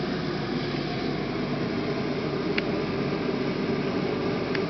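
Steady hum and hiss of a powered-up Bergonzi Synthesis CNC portal milling machine. Two short clicks come about two and a half seconds in and again near the end.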